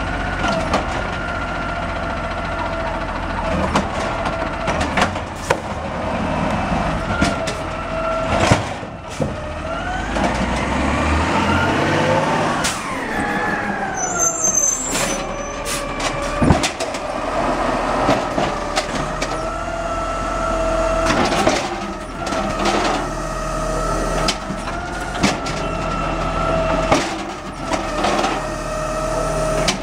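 Automated side-loader garbage truck running with a steady whine and scattered knocks and clanks, its engine rising and falling in pitch about a third of the way in as the truck moves off, with a brief hiss midway.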